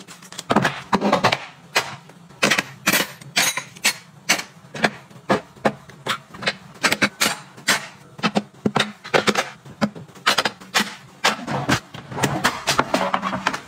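Quick, irregular clicks, taps and knocks of plastic drawer organizers and kitchen utensils being handled and set into a kitchen drawer.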